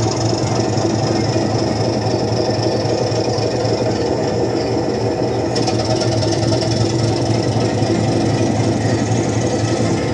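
Recorded locomotive engine sound played back by a model railway sound system that follows a DC locomotive's movement: a steady, dense running engine, with the upper layer shifting slightly about halfway through.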